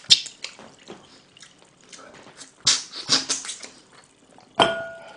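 Close-miked eating sounds: lips and teeth sucking and smacking meat off a pork neck bone held by hand. There is a sharp click at the start, a quick run of wet smacks about three seconds in, and a short sharp sound with a brief tone near the end.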